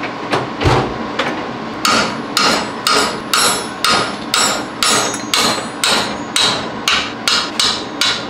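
Hammer blows on metal, about two a second from roughly two seconds in, with a few lighter taps before. They are jarring the rusted nuts on the studs of an exhaust manifold to break them loose.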